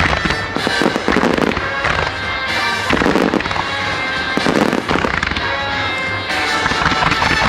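Starmine fireworks barrage: aerial shells bursting in quick succession with crackling, several heavier bursts a second or two apart, over loud music played along with the display.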